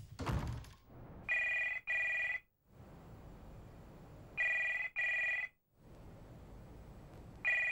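Cordless telephone ringing with an electronic double ring: two short bursts, a pause, then the pair again. Three pairs come about three seconds apart, the last starting near the end.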